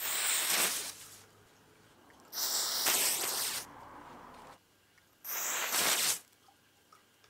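Talon clip-on pyrotechnic igniters flaring three times in turn, each a sharp hissing fizz lasting about a second. Each firing shows that the single-cue firing system is reliably setting the igniters off.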